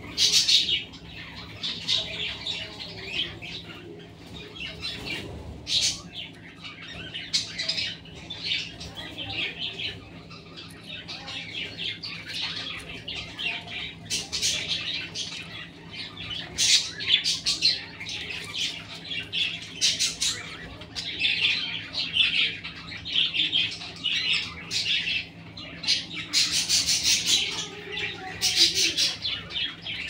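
Budgerigars chirping and chattering in rapid, high-pitched bursts.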